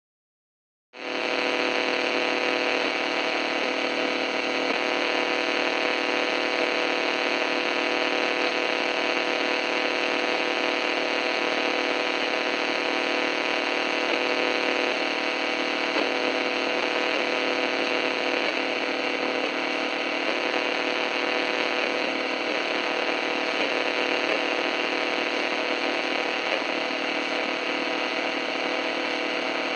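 Radio static with a steady hum and interference, starting abruptly about a second in and holding constant: an even hiss laced with many fine buzzing tones.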